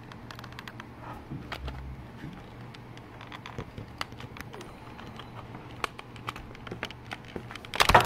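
Small plastic clicks and ticks from hands working the steering wheel's plastic control switch pod and its housing, with a louder clatter near the end.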